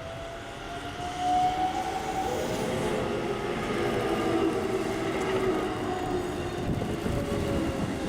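Electric commuter train running past, its traction-motor whine rising slowly in pitch over rumbling wheel noise that grows louder about a second in.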